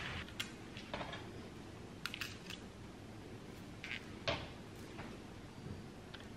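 Quiet kitchen handling sounds: a few faint clicks and light knocks as hands work over a metal baking tray, straightening it and setting cheese cubes on the puff pastry. The most distinct knock comes a little over four seconds in.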